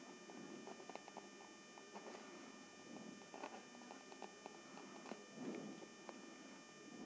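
Faint scratching of a ballpoint pen writing on notebook paper, with small irregular clicks, over a steady electrical hum.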